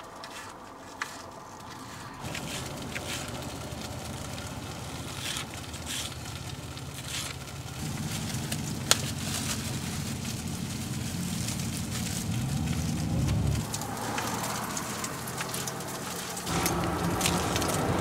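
Turkey bacon sizzling and crackling in a frying pan: a steady hiss dotted with small pops.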